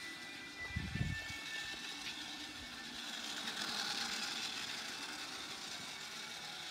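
Steady hiss of background noise, swelling slightly midway, with a low thump about a second in.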